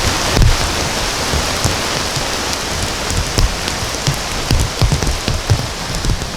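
Heavy rain falling steadily and pattering on a surface, with scattered low thuds among the drops.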